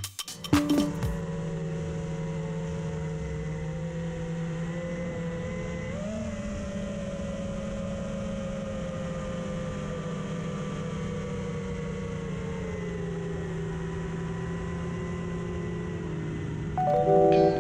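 Onboard-camera sound of an electric RC aircraft's motor and propeller at steady throttle in flight: a steady whine of several tones over wind hiss. The pitch jumps briefly about six seconds in, then drifts slowly lower.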